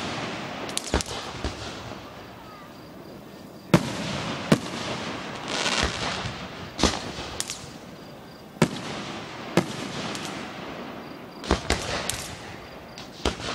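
Fireworks display: aerial shells bursting with about a dozen sharp bangs, some in quick pairs, with crackling and hissing between them.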